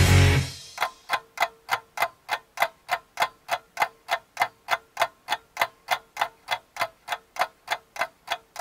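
Clock-ticking sound effect (iMovie's 'Clock Wind Up'): evenly spaced sharp ticks, about three and a half a second, over a faint steady hum. The tail of rock music fades out just as it begins.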